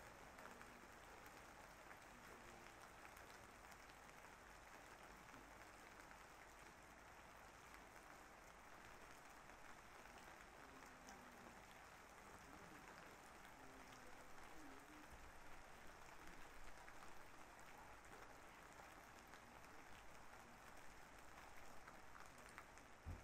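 Faint steady rain: an even hiss with scattered drop ticks. A single sharp click right at the end.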